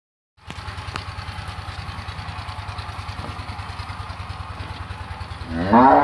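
A small engine running at a steady, even beat, starting just after a silent opening. Near the end a cow begins a loud moo that rises in pitch.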